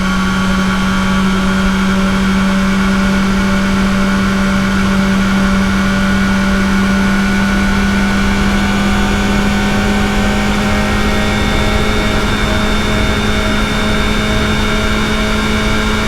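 Kawasaki ZX-4RR's inline-four engine through its stock exhaust, running under steady throttle while riding. The pitch creeps slowly upward as the revs build.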